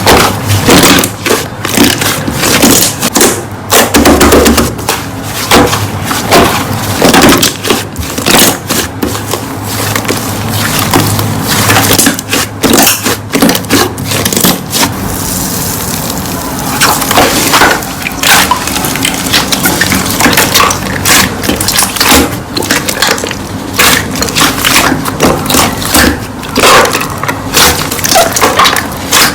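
Slime being squeezed, pressed and worked by hand, giving dense crunchy crackling and clicking, with a briefly softer, smoother stretch about halfway through.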